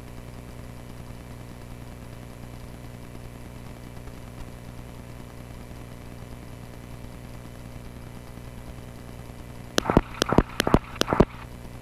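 Cessna 140A's small piston engine idling steadily, heard as a low hum. About ten seconds in comes a quick run of roughly seven sharp clicks.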